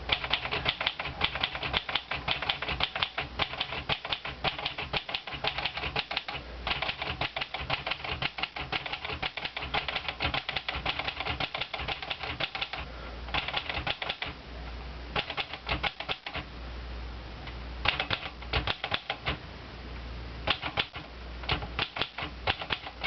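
Olivetti Lettera 32 manual portable typewriter being typed on: quick runs of key strikes, several clacks a second, with short pauses between runs as each letter of the keyboard is typed in turn.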